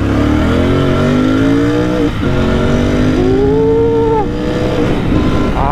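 Royal Enfield Continental GT650's 648 cc parallel-twin engine and exhaust under hard acceleration, the pitch rising, dropping briefly about two seconds in at an upshift, then rising again. Wind rushes loudly over the open helmet visor.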